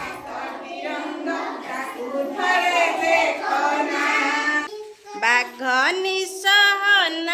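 A group of young children singing an Odia action rhyme together. The singing dips briefly about five seconds in, then comes back louder with clear sliding notes.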